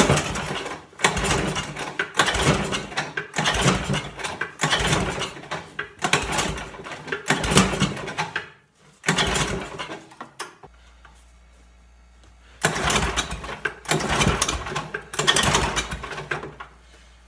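A 10 HP Tecumseh single-cylinder snowblower engine is being cranked by its recoil pull-starter, with the choke on and the throttle at full, as a cold start. There are about nine quick pulls a second or so apart, a pause of about two seconds, then three more, and the engine does not catch.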